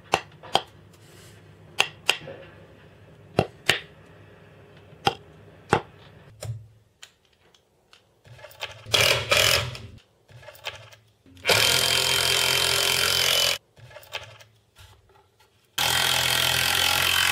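A hammer knocking a plywood shelf into place, about seven sharp taps over the first six seconds. Then a power drill driving screws into the shelf: a short burst, then two steady runs of about two seconds each, the second still going at the end.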